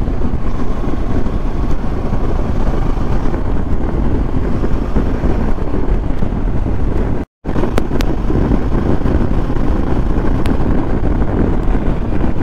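Motorcycle riding noise from a Kawasaki Versys: wind rushing over the action camera's microphone, with engine and tyre noise underneath. The sound cuts out for a moment a little past halfway.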